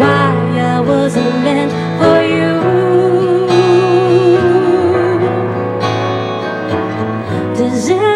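Live ballad: a woman singing, holding one long note with vibrato partway through, accompanied by grand piano and acoustic guitar.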